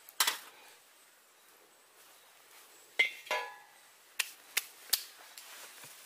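A few sharp knocks of wood against metal and wood: a hard tap about a quarter second in, a double knock with a short ringing clink about three seconds in as a wooden spatula is set into a metal pan, then three quick clicks about a second later.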